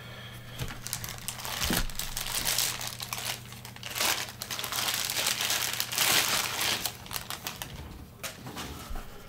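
Clear plastic wrapping crinkling and rustling as a small LED light is pulled out of it by hand. It dies down near the end, with a couple of light clicks.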